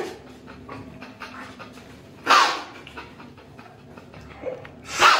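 A woman retching: loud heaving gasps about two seconds in and again near the end, with panting breaths between.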